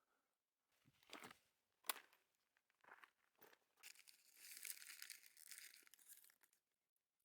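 Faint rustling and crinkling, with a sharp click about two seconds in and a longer stretch of rustling from about four seconds in.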